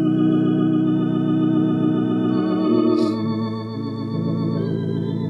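Slow hymn music played on a church keyboard instrument: long held chords with a slight waver, moving to new chords about halfway through and again near the end.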